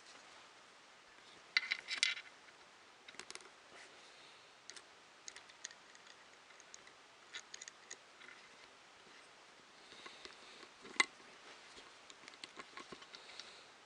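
Scattered light clicks and small rattles of plastic parts and wires being handled and fitted together, with a brief cluster of clicks about two seconds in and one sharper click near the eleven-second mark.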